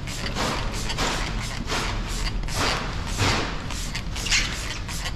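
Hand spray bottle spritzing slip solution onto the car's paint in a series of short hisses, about one a second, with a dull thump a little past halfway.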